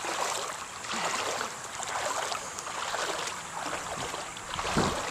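A person wading through knee-deep floodwater, the water sloshing in a steady rhythm with each stride. Wind buffets the microphone near the end.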